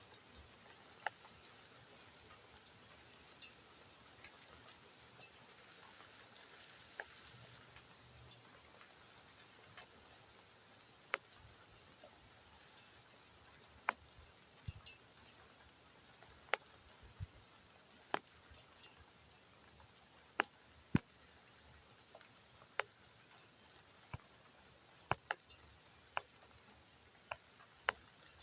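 Light rain: a faint steady hiss with single drops landing sharply at irregular moments, roughly one every second or two, some louder than others.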